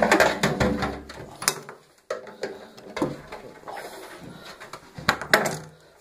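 Metal knocks and clatter of tools against a washing-machine drum as it is handled while its drum spider is taken out. The loudest knocks come right at the start and again about five seconds in.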